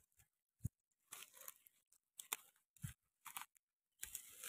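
Faint, scattered crunching and crackling of dry twigs and burnt leaf litter under bare feet walking, in short bursts with near silence between.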